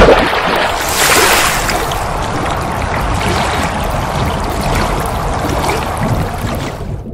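A water sound effect: a sudden splash, then a steady rush of running water that stops shortly before the end.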